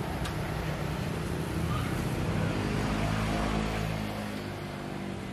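Outdoor street background with a motor vehicle's engine passing by, swelling to its loudest about halfway through and fading away near the end, over faint chatter.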